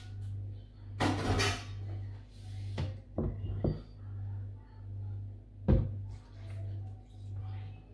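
A plastic blender jar and a mug are handled on a wooden counter: a scraping rustle about a second in, a few light clicks, then a solid knock just before six seconds as the jar is set down. Milk is then poured faintly into the jar. Underneath runs a low background hum that swells and fades in a steady rhythm.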